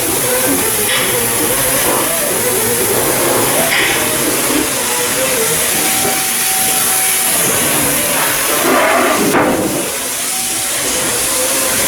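Steady hissing noise with a wavering hum underneath and a single sharp knock about nine seconds in.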